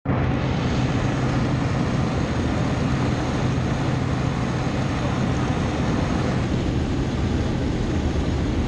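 Single-engine high-wing jump plane's engine and propeller droning steadily, mixed with wind noise, as heard from inside the aircraft.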